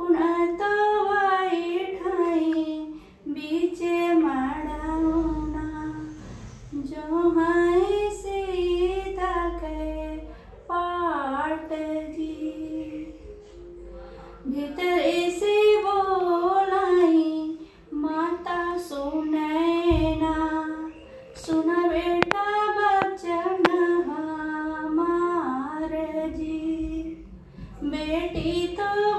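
A woman singing a North Indian folk wedding song (vivah geet) solo, with no instruments. She sings in long, bending, held phrases with short breaks between them.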